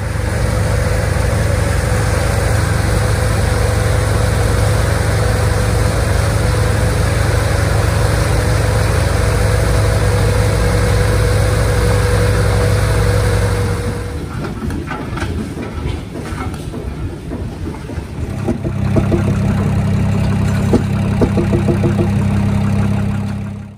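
Radial aircraft engine with propeller running steadily on a test stand. After about fourteen seconds the sound drops and changes, and a different engine runs through the last few seconds.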